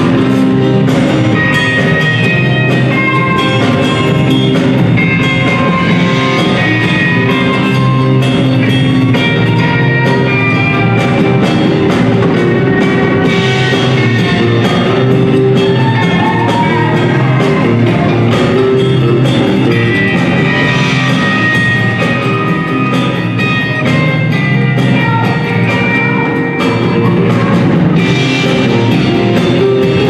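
Live rock band of electric guitars, bass guitar, keyboard and drum kit playing a soul cover song, loud and steady without a break.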